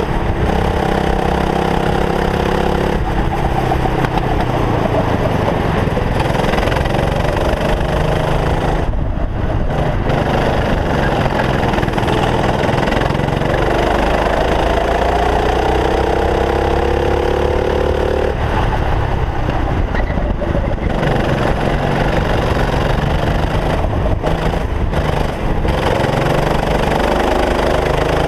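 Racing kart's engine heard on board under a steady rush of wind and road noise, its pitch climbing slowly on the straights and falling sharply when the throttle is lifted, about three seconds in and again around eighteen seconds in, then climbing again near the end.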